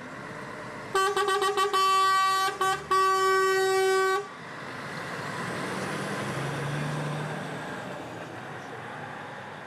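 Road vehicle horn honking: a quick run of short toots, then longer blasts, the last about a second and a half long. Then a passing vehicle's engine and tyre noise swells and fades away.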